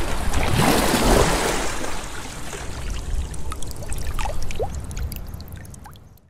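Running water, pouring and trickling, with a few short bubbling blips in the second half; it fades out gradually to nothing near the end.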